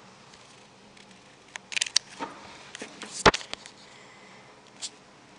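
Scattered clicks and light knocks from a handheld camera being moved and handled, over a faint steady room hiss. A cluster of clicks comes about two seconds in, and the sharpest knock a little after three seconds.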